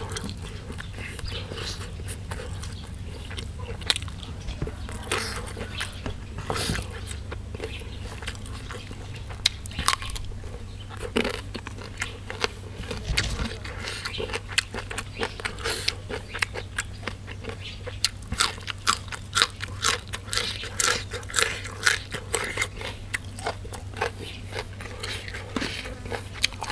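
Close-up eating sounds: crisp bites into raw vegetables and wet chewing of beef larb, with many short crunches and mouth clicks, densest in the second half. A steady low hum runs underneath.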